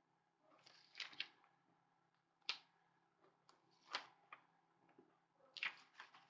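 Faint rustling and crinkling of brittle 1958 magazine paper, handled and pressed down by hand, in several short separate bursts.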